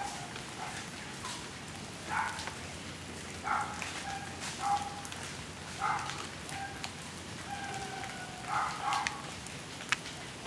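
Footsteps in rubber boots crunching through dry fallen leaves, a fine crackling with scattered sharp clicks. A short call recurs every second or two.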